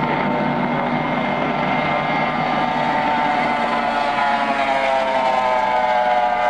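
Outboard engine of a race boat running flat out on a high-speed pass, a high-pitched whine over the hiss of spray; the pitch falls over the last couple of seconds as the boat goes by.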